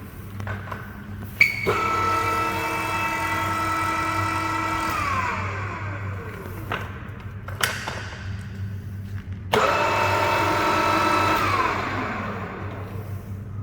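Ooya RE-1225H radial arm drill's spindle gear drive started up, running with a steady whine and then spinning down with falling pitch, twice, with sharp clicks of the controls between runs. A steady low hum runs underneath.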